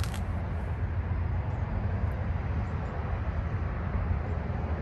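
Steady low background rumble with no clear pitch, uneven in loudness, with a couple of short clicks right at the start.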